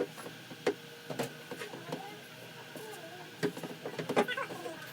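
Scattered sharp taps and knocks on a car body panel during dent repair, irregular, with a quicker cluster near the end.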